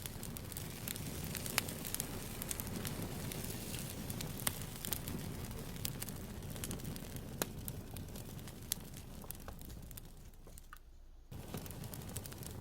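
Campfire crackling: scattered sharp pops and snaps of burning wood over a low rumble. It fades nearly to nothing for about a second near the end, then comes back.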